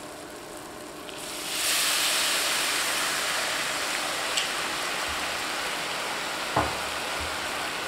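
Brandy poured into a hot cast-iron skillet of butter, peppercorns and capers: the sizzle swells sharply about a second and a half in and then holds as a loud, steady sizzle. A single light knock comes near the end.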